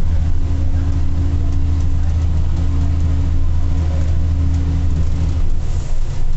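Tour bus engine running as the bus drives along, a steady low drone that breaks up into a rougher rumble about five and a half seconds in.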